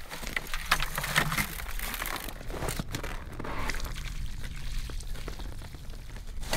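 Snow and ice slush crunching and crackling as it is handled with gloved hands, with scattered sharp clicks, busiest in the first few seconds and softer after.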